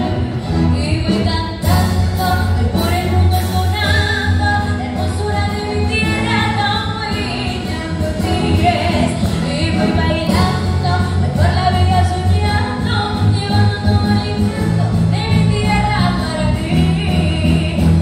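A woman singing a Paraguayan popular song into a microphone, accompanied by a large youth symphony orchestra with many violins and cellos, played through a PA system.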